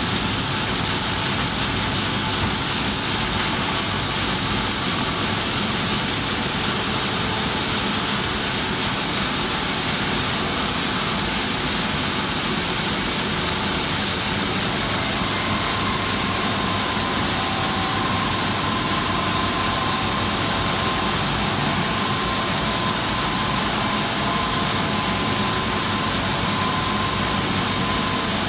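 Heidelberg sheet-fed offset printing press running, a steady mechanical noise with no break, with a faint steady tone coming in about halfway through.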